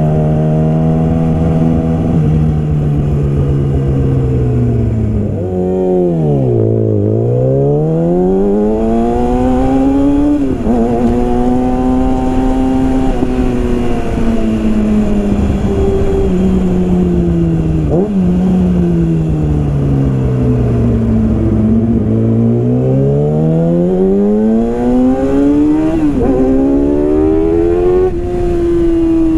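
Yamaha R6's inline-four engine breathing through a full Yoshimura exhaust system, under way: revs fall away steeply about six seconds in, then climb again with sudden drops at gear changes, sag once more in the second half and rise again near the end.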